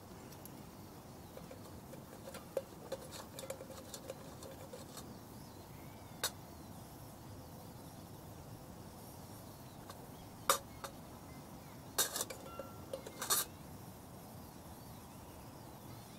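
Campfire crackling: scattered sharp pops over a low steady hiss, with a cluster of louder snaps and knocks about twelve to thirteen seconds in.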